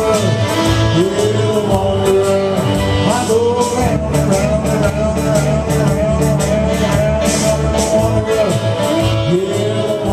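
Live rock-and-roll band music in an instrumental stretch between sung lines: electric guitar and a full accompaniment with a steady beat, under a held, wavering melody line.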